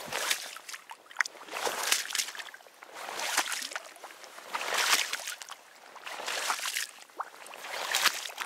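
Wading through shallow water in waders, each stride sloshing and splashing, about six strides at an unhurried pace.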